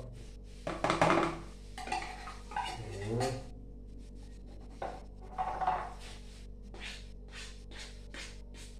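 Kitchen utensils working in a green plastic mixing bowl: scrapes and knocks of a spoon and spatula against the bowl and a small metal cup, a few louder ones in the first few seconds. Near the end these become even strokes of a spatula, about three a second, over a steady low hum.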